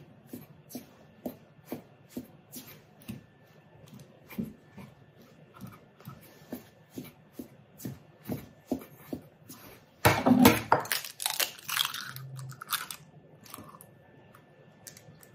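Light rhythmic taps about twice a second, then about ten seconds in a loud crunch and wet crackle of a raw egg's shell being cracked open, lasting a couple of seconds.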